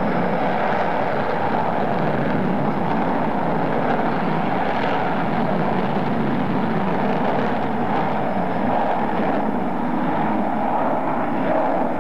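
Rockwell B-1B Lancer bomber in flight, its four General Electric F101 turbofans giving a steady jet engine noise with no rise or fall as it banks with wings swept forward.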